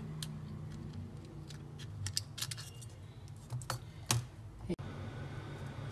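Scattered light clicks and taps of a metal pry tool and fingers on an Oppo F1S's plastic frame and circuit board as the motherboard is pried loose and lifted out; the sharpest click comes a little after four seconds in.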